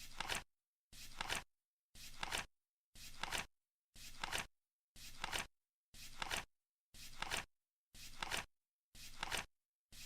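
Flip-clock sound effect: a short rustling flip ending in a quick double click, once a second, with dead silence between each flip.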